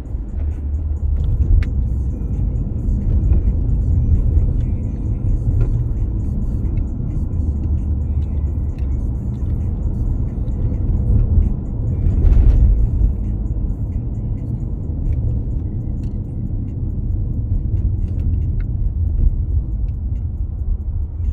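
Road noise heard inside a moving car's cabin: a steady low rumble of tyres and engine, swelling briefly a little past the middle.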